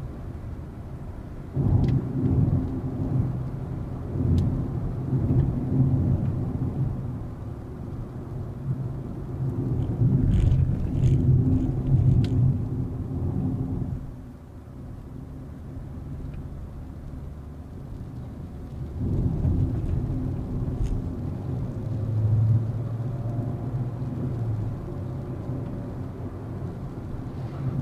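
Volkswagen Vento's 1.2 TSI turbo petrol engine running under way, with tyre and road noise, rising and easing in surges. It goes quieter shortly after halfway for about five seconds, then picks up again.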